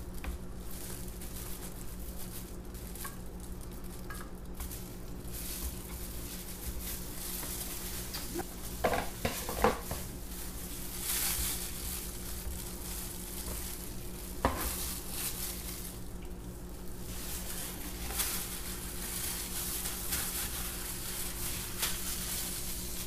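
Silicone spatula stirring and scraping thick soap batter in a plastic pitcher, with a few light knocks against the pitcher about ten and fourteen seconds in. A steady low hum lies under it.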